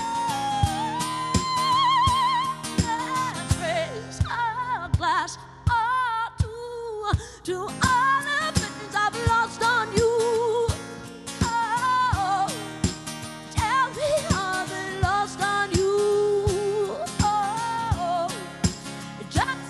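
Live acoustic pop-rock performance: a singer's wordless vocal runs with heavy vibrato over acoustic guitar and regular snare-drum hits, the band thinning out briefly about four seconds in before coming back in full.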